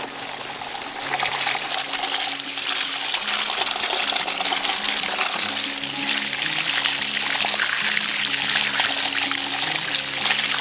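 Water running steadily from an outdoor hose spigot and splashing over hands as they are rinsed of mud. Soft background music plays underneath.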